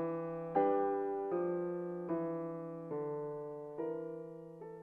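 Slow, soft piano background music: a new chord is struck about every 0.8 seconds and left to fade, over a held low note.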